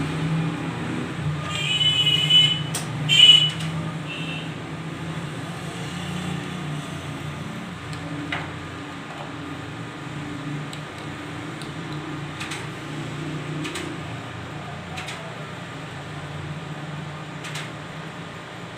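Steady low hum of the ATM booth's air conditioner. A few electronic beeps from the ATM come about two to three seconds in, and light clicks follow now and then.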